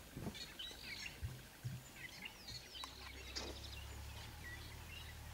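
Several birds chirping and calling, with short high notes overlapping one another; a low steady hum comes in about halfway through.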